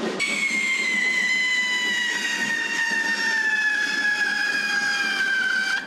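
Whistling firework burning in a shower of sparks: one long shrill whistle lasting about five seconds, sliding slowly down in pitch, starting and stopping abruptly.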